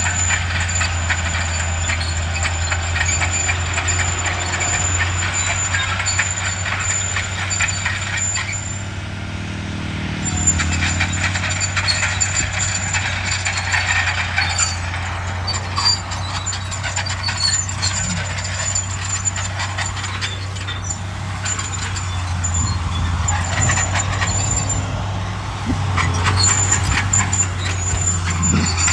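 Heavy diesel earthmoving machinery at work: a bulldozer's engine runs with a steady low hum under a dense clatter and a thin high whine. About eight and a half seconds in, the clatter and whine stop while the engine note shifts, and both return about two seconds later.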